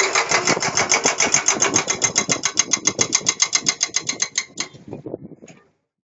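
Rapid, even mechanical hammering, about nine sharp blows a second, that stops about four and a half seconds in; a few weaker knocks follow before it fades out.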